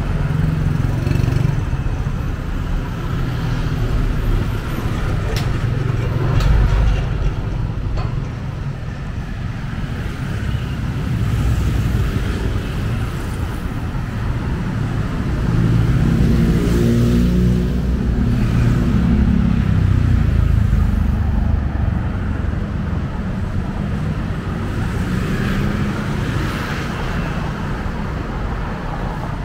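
Road traffic on a city street: the steady low rumble of vehicle engines and tyres, with one vehicle's engine drone swelling louder as it passes close about halfway through.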